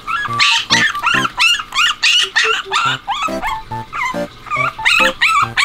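Poodle puppy crying from behind a playpen fence: a rapid run of short, high yelping and whining cries, several a second, in protest at being shut in. Background music with a steady beat underneath.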